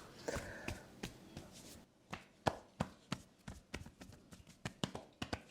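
Hands striking the body in a percussive tapping massage: a quick, uneven run of sharp slaps and taps, about four a second.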